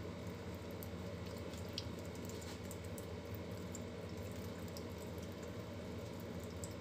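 Thin stream of tap water running steadily into a stainless steel sink, with scattered light ticks and drips.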